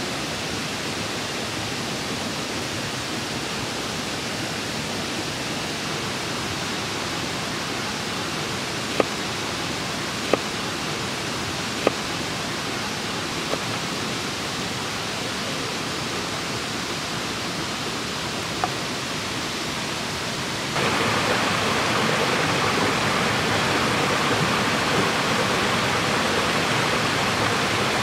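Steady running water of a stream, with five sharp knocks of a chef's knife chopping through a grilled corn cob on a wooden board in the middle. About two-thirds of the way in the water noise steps up louder and brighter.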